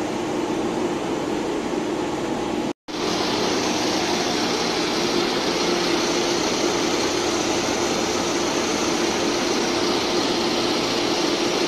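Steady running noise of feed-mill machinery, a constant even din with a low droning hum. It cuts out for a split second just under three seconds in, then carries on unchanged.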